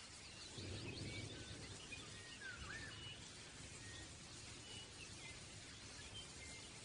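Faint small birds chirping in the background, with short high chirps and a few gliding whistles scattered through, over a steady low hiss. A soft low rustle rises briefly about a second in.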